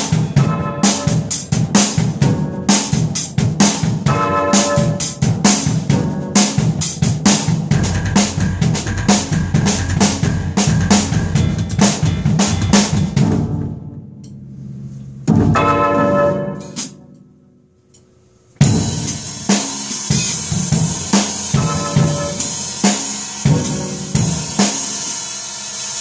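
Drum kit being played: a steady beat of bass drum, snare and cymbals. The playing breaks off about 14 seconds in, and after a brief near-silent moment it starts again with a brighter, hissing cymbal wash over the beat.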